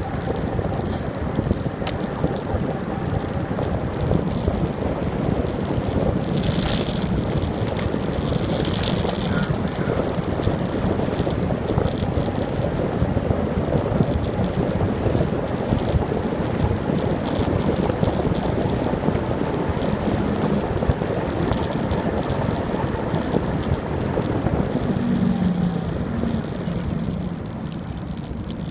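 Steady rush of wind on the microphone, mixed with tyre noise, from a bicycle rolling along a paved road.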